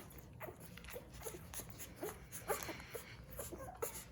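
A litter of nine-day-old Labrador retriever puppies making soft squeaks and little grunts while nursing, short rising peeps coming two or three a second.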